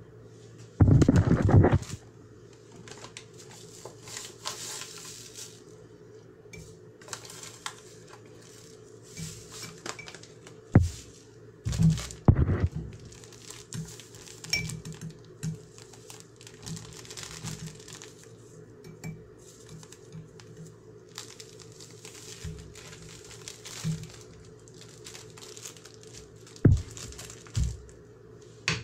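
Plastic bag crinkling and a metal spoon clinking against a glass jar as salt and sugar are poured and spooned in, with scattered knocks from handling; the loudest knock comes about a second in.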